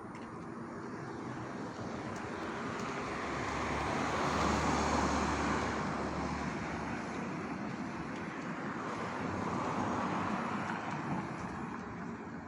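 Road traffic at night: vehicles passing, with one pass swelling up and fading about four to five seconds in and a second about ten seconds in.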